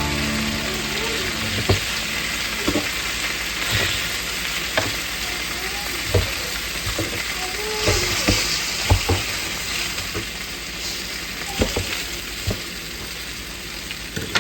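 Boneless chicken thighs frying in a pan of hot sunflower oil: a steady sizzle with sharp pops and crackles every second or so.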